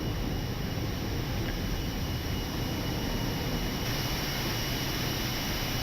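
Steady cockpit noise of an Airbus A319 on approach: an even rush of airflow and engine noise, with a thin steady high whine over it.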